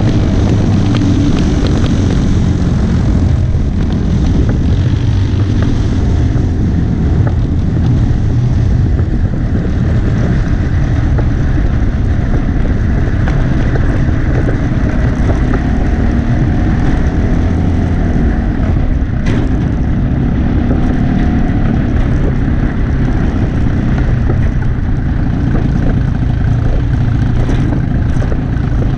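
Junior dragster's single-cylinder engine running steadily as the car rolls along, a dense low rumble on the on-board camera.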